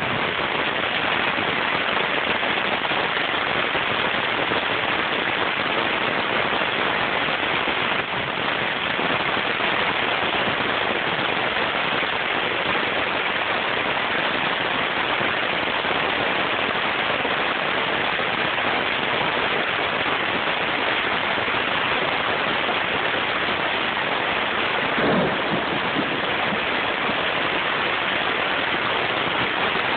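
Heavy thunderstorm rain pouring down steadily, a dense even hiss. About 25 seconds in, a short low sound rises briefly above it.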